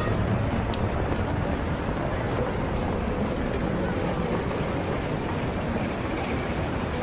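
Steady, even rumble of street traffic with no single event standing out.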